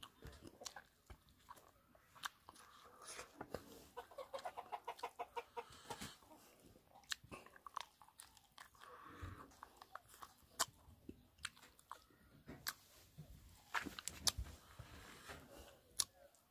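A person biting and chewing pig's feet: irregular wet clicks and crunches of teeth on skin, cartilage and bone.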